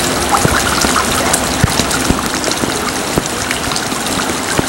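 Rain falling steadily: a dense hiss with many separate drops splashing sharply on a hard surface.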